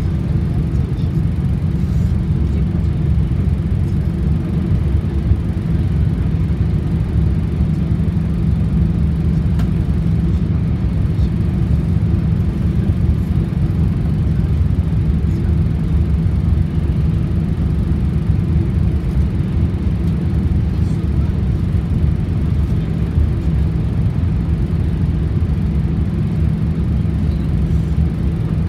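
Inside-cabin running noise of an E4 series Max double-decker Shinkansen travelling at speed: a steady low rumble that does not change.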